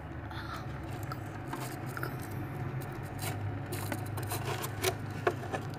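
Scraping, rubbing and small clicks of shampoo-and-salt slime being mixed in a container, over a steady low hum.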